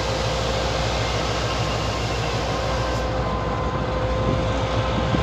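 Passenger train's steady hum and low rumble, with a faint constant whine, and a louder low thump at the very end.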